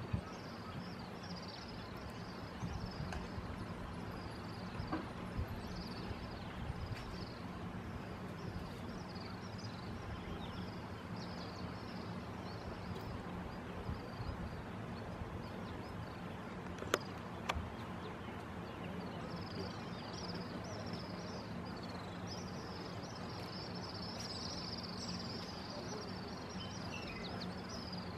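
Outdoor background noise with a continuous chorus of short, high chirping calls that grow denser toward the end, over a low steady hum; two sharp clicks come about two-thirds of the way through.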